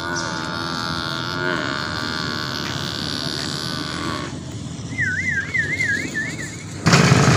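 Motor vehicle engines running on the nearby road: a steady engine drone that shifts slightly in pitch, then fades about four seconds in. A warbling, wavering tone follows, and a much louder engine comes in suddenly near the end.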